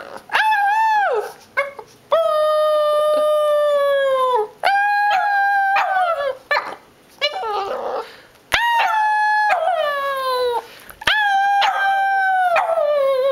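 A Boston Terrier howling in a string of long, held notes, each sliding down in pitch at its end, with short breaks between them.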